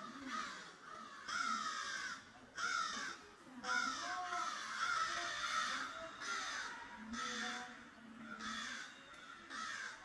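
A bird calling over and over: a series of about nine calls, roughly one a second.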